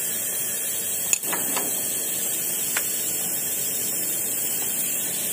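A single sharp metallic click about a second in, then a couple of faint ticks over a steady hiss: a 17 mm combination wrench being fitted onto the crankshaft sprocket bolt of a Suzuki Multicab's F6 engine.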